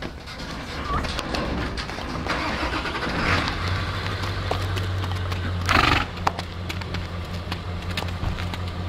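Horse hooves stepping on packed dirt and a trailer floor, with scattered light knocks, over a steady low engine hum that comes in about three seconds in. A short loud rushing noise occurs about two-thirds of the way through.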